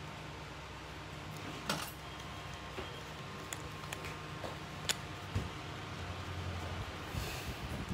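About six sharp clicks of nail nippers and small metal tools, spaced irregularly, over a steady low hum.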